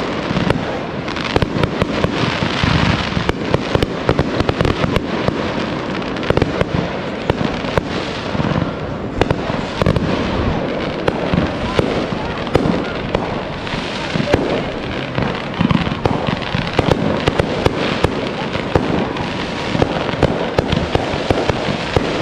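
Fireworks going off in a dense, continuous barrage of sharp pops and crackles with no break.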